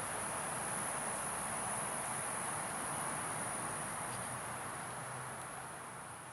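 Insects, likely crickets, trilling in a steady high-pitched chorus over a soft outdoor hiss, fading out near the end.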